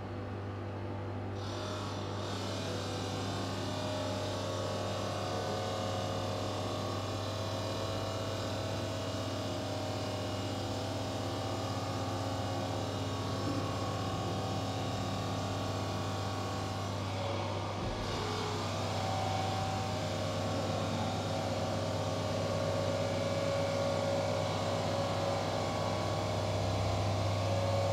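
CNC bridge saw's water-cooled diamond blade cutting along a stone slab: a steady motor hum with a hiss of the cut that comes in about a second and a half in and grows a little louder near the end.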